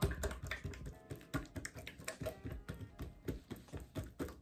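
Hands patting and pressing a soft, oiled dough sheet flat on a table: a string of light, irregular slaps and taps, a few each second.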